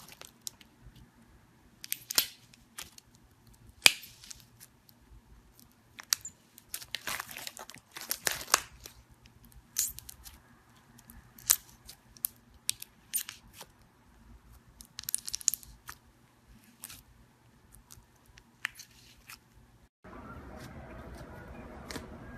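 Irregular sharp crackles, clicks and short rustling bursts, as of something being handled, crinkled or torn; about two seconds before the end they stop and a steady low hum takes over.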